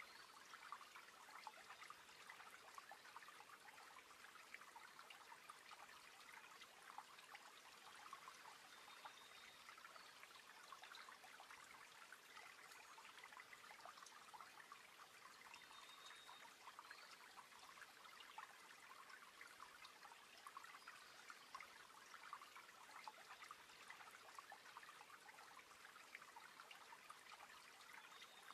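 Faint, steady trickling and splashing of aquarium water, its surface stirred by a circulation pump that drives a river-like current through the tank.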